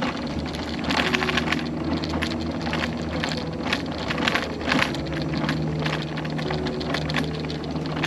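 Pride Mobility Pursuit 2 mobility scooter rolling along, its electric drive motor giving a steady low hum, with frequent short rattles and knocks from the ride.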